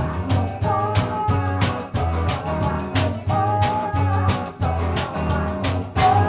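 Band music with a steady drum beat, a repeating bass line and a plucked, guitar-like lead.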